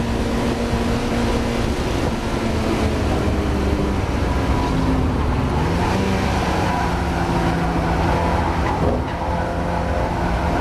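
Mazda MX-5 race car's four-cylinder engine running hard on track. Its pitch drops and wavers about halfway through, as in a lift or gear change, then climbs and holds steady. This is a car suffering from a misfire.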